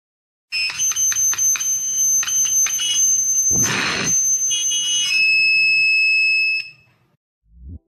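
Acoustic feedback through a small homemade breadboard amplifier, its electret microphone held close to the loudspeaker: a loud, high-pitched squeal of several steady tones at once, broken by clicks, with a brief scratchy burst about halfway through. It cuts off suddenly near the end.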